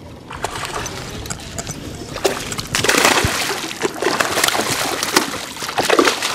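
Hooked bass thrashing and jumping at the water's surface, a run of repeated splashes that grows louder about three seconds in.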